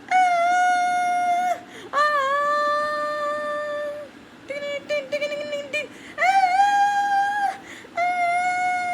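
A lone high voice singing without words, with no accompaniment. It holds long, steady notes and has a run of quick, short notes near the middle.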